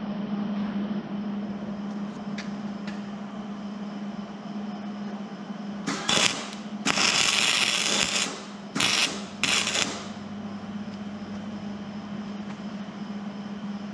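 Wire-feed welding arc laying four short tack welds on a steel bumper bracket: the crackle comes in four bursts, one short, one of about a second and a half, then two short ones, over a steady low hum.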